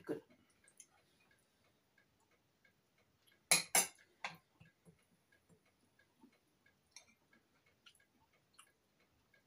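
Knife and fork clinking against a dinner plate while eating, with two loud clacks about three and a half seconds in and another just after, over a faint steady ticking.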